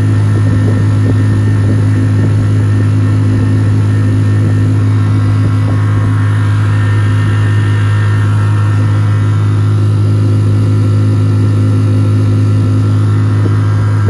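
Tohatsu 3.5 HP outboard motor running steadily under way, a constant drone over a hiss. The pitch holds even, with no surging, as the ventilation problem has been cured by the new propeller.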